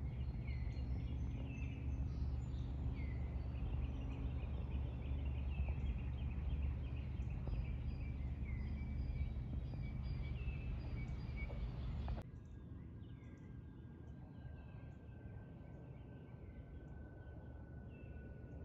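Songbirds chirping over a low steady rumble. About twelve seconds in, the sound cuts abruptly to a quieter passage where the birds go on and a faint thin whine slowly falls in pitch.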